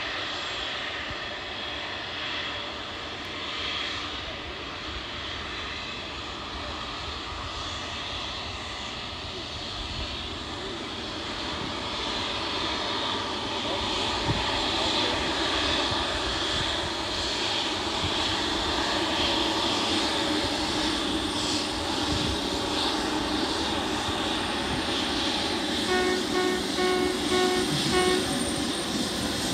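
Turbofan engines of a jetBlue Embraer 190 taxiing, running steadily and growing louder as it nears from about twelve seconds in. Near the end, a quick run of beeps at about three a second sounds for two seconds.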